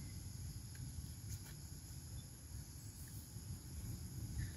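Steady high-pitched insect drone over a low rumble, with a few faint ticks.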